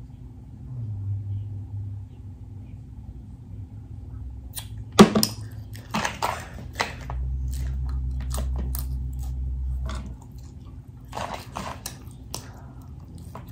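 Close-up eating sounds: wet chewing and lip smacks in short clusters, with a single sharp knock about five seconds in as a drinking glass is set down on the table. A low steady hum runs for a few seconds in the middle.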